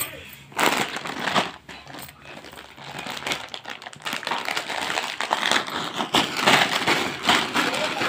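Crinkly plastic snack packets being crumpled and rustled by a baby's hands, in irregular spurts at first, then more continuous.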